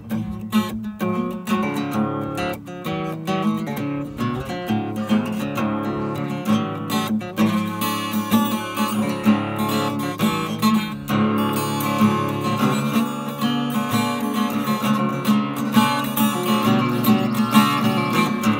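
Solo acoustic guitar in drop D tuning, played as a continuous run of picked and strummed notes.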